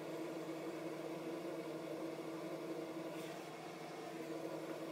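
Power inverter humming steadily while it drives about 300 W of incandescent lamps off a LiFePO4 battery under a capacity test, a low electrical hum made of several fixed tones.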